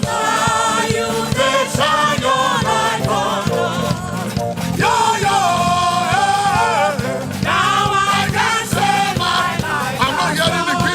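Live gospel worship music: voices singing over a band with a steady beat.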